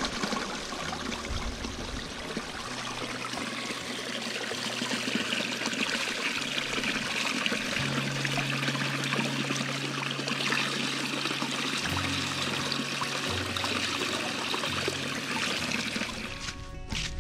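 Steady rush of flowing stream water, with soft background music of long held low notes.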